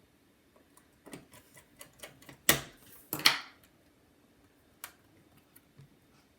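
Small clicks and taps of a precision screwdriver and small parts being handled inside an open MacBook, with two louder knocks about two and a half and three seconds in and a lone click near five seconds.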